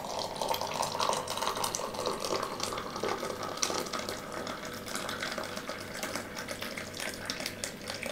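Hot water from a countertop water dispenser running in a thin, steady stream into a glass mug, splashing onto chocolate malt powder as the mug fills.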